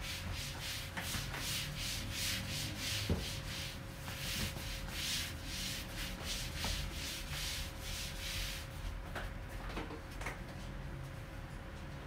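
A flat mop pushed back and forth over a smooth floor in quick swishing strokes, about two or three a second, thinning out near the end.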